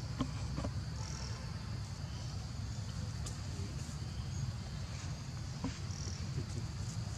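Outdoor ambience: a steady high insect drone with short chirps over a low rumble, and a few faint clicks.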